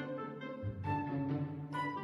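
Background music with bowed-string-like chords and an accented beat roughly once a second.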